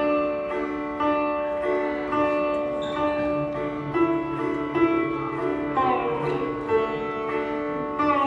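Sitar being played: a run of plucked notes over a steady held drone tone, with sliding notes that bend in pitch about six seconds in.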